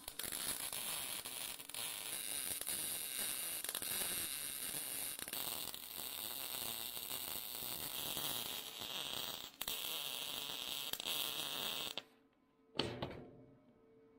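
Wire-feed welder's arc crackling steadily as a weld bead is run on a trailer fender, with a brief break partway through. It stops about two seconds before the end, followed by one short burst of arc.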